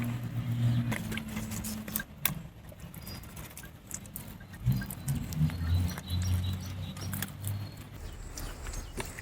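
Hands smearing and rubbing wet spice paste over a whole country chicken, with soft scattered squelches and pats. A low hum comes and goes in the background.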